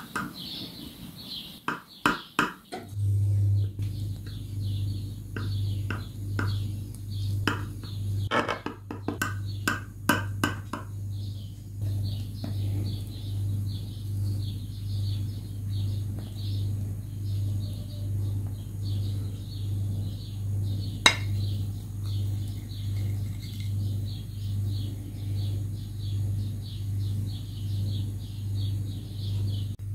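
Metal cutlery clicking and scraping against a glass baking dish while a piece of soft layered dessert is cut and lifted out, with sharp clicks in the first ten seconds and one more about twenty seconds in. Under it, from about three seconds on, a steady low hum that pulses about once a second, and repeated high chirps.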